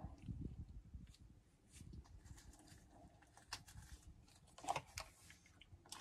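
Near silence with a few faint, scattered clicks and taps, the loudest a little before the end, over a low room rumble.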